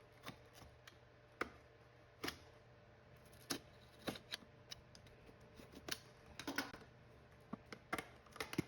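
A Rubik's Cube box being unboxed by hand: scattered soft clicks, taps and short rustles of the packaging at irregular intervals.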